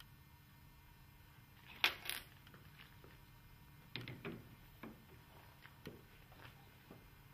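Handling clicks and knocks as a drilling jig with brass bushings is set onto a PVC window sash: a sharp double click about two seconds in, then several lighter knocks.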